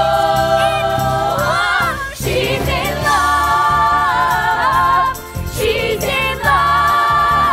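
Female vocal ensemble singing long held notes in close harmony over a musical accompaniment, in three drawn-out phrases.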